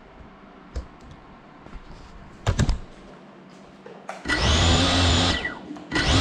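GEPRC Cinelog 35 cinewhoop drone's motors and propellers spinning up in a short burst of about a second that winds down with a falling whine, then spinning up again near the end. Before that, a couple of sharp knocks.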